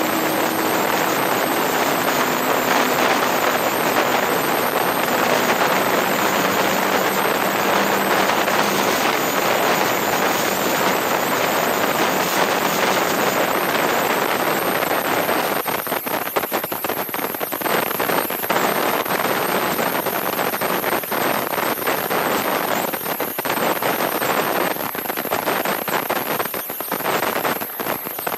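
McLaren MP4-12C driving at speed, heard from an outside-mounted camera: a steady rush of wind and road noise, with a faint engine tone that steps down in pitch over the first several seconds.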